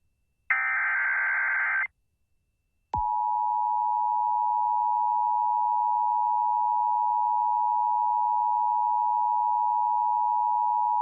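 Emergency Alert System tones: a burst of digital SAME header data lasting about a second and a half, then, after a second's gap, the steady two-tone EAS attention signal that holds unchanged.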